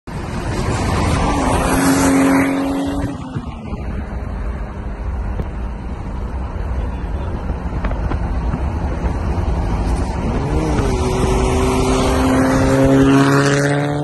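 Turbocharged cars (Mitsubishi Evo VII, Toyota Supra Mk4, MR2) accelerating hard, heard through an open car window with heavy wind and road rush. The engine note holds briefly about two seconds in, then falls away. From about ten seconds in it climbs steadily again as the cars pull.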